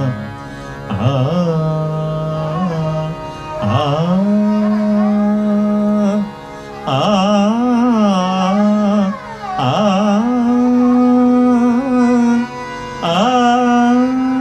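Male vocalist singing a Haveli Sangeet devotional pad in raag Malhar, in phrases of long held notes, each phrase opening with a swoop up in pitch.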